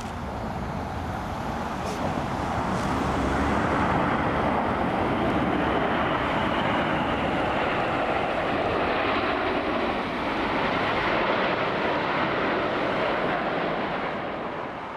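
Jet noise from Red Arrows BAE Hawk T1 aircraft flying past, their Adour turbofans giving a steady rushing roar. It swells over the first few seconds, holds, and fades near the end.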